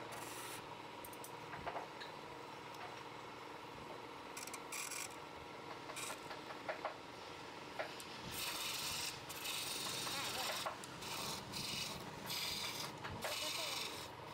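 Wood lathe running with a tool scraping against the spinning wood, with a few sharp clicks at first, then repeated short, louder cutting passes from about eight seconds in.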